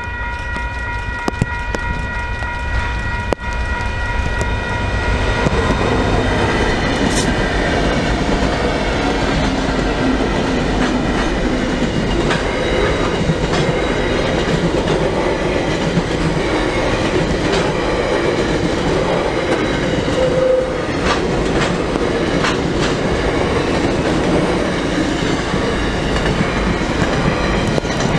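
Level-crossing electronic bell ringing with steady high tones, then four SCT class diesel locomotives passing close by from about five seconds in. After them a long freight train of box wagons and container wagons rolls past with a steady rumble and wheels clattering over the rails.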